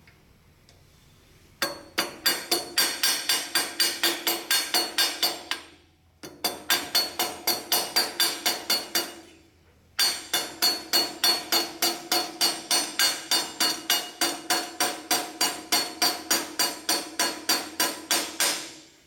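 Hammer tapping a steel pin into a pallet jack's handle pivot: rapid metal-on-metal blows, about four or five a second, each with a ringing clank. The blows come in three runs, with two brief pauses.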